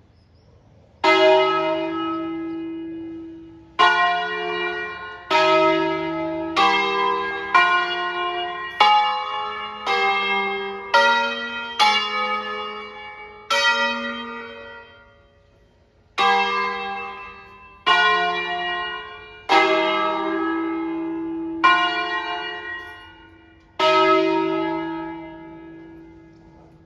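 Five-bell peal of Crespi-cast bronze church bells, largest bell in E-flat, playing a short solemn 'concerto': one bell at a time is struck, about fifteen strokes in a slow melodic sequence, closer together in the middle and then about two seconds apart, each note left to ring and die away. This is a newly programmed, automated concerto ringing on the freshly overhauled bells.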